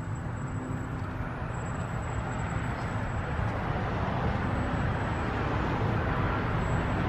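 Fresh motor oil being poured from a quart bottle into the engine's oil filler, a steady pouring noise that grows slightly louder.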